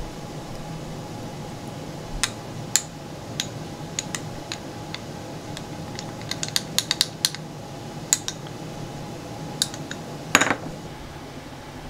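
A small spoon stirring sauce in a glass bowl, clinking against the glass in scattered light clicks, with a quick run of clicks about six to seven seconds in and a heavier knock near the end. A steady low hum runs underneath.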